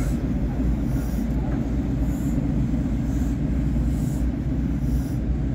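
A small locomotive running slowly along the track: a steady low rumble with faint regular beats about once a second.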